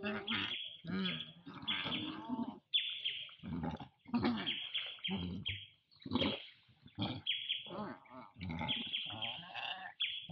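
Long-tailed macaques giving a run of short, high-pitched calls and squeals, one after another with brief gaps.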